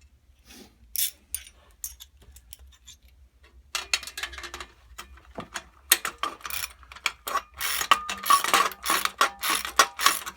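Small steel hardware clicking and clinking as washers and nuts are handled and fitted onto 1/4-inch bolts through an aluminum fender and cart frame. Sparse clicks at first, becoming a dense run of rapid ticking from about six seconds in.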